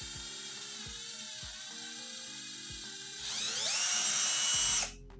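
Aquaracer cordless drill's motor spinning the chuck freely with a high, steady whine, then speeding up with a rising, louder whine about three seconds in and stopping abruptly near the end.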